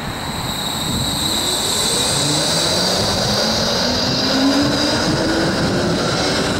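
Bombardier E-class low-floor tram pulling away from the stop: its traction motors whine, slowly rising in pitch as it gathers speed, over the rumble of the wheels on the rails. A thin high whine sits above it throughout.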